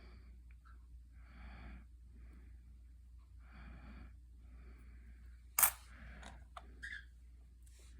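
Close, soft breathing about once a second, then one sharp click about five and a half seconds in and a few fainter clicks as pennies are handled.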